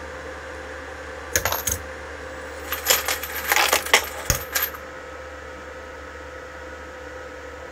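Brass 6mm AR rifle cases clinking and rattling as they drop through an automatic case feeder and annealer: a couple of sharp clicks about a second and a half in, then a longer run of metallic clinks about three to five seconds in, over a steady machine hum.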